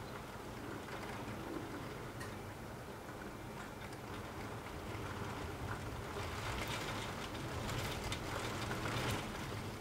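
Rain falling: a steady hiss with scattered ticks of single drops over a low steady rumble, growing louder and fuller about six seconds in.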